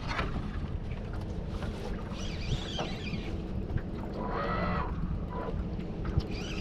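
Wind rumbling on the microphone over water around a small aluminium fishing boat, while a fish is played on a bent rod. Two brief higher-pitched sounds come through, about two and four seconds in.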